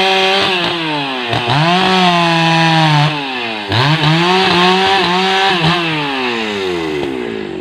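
Husqvarna 288XP two-stroke chainsaw held at full throttle twice, a couple of seconds each time, as it works through rubberwood logs. Between the two the revs dip briefly, and near the end the pitch falls steadily as the throttle is released toward idle.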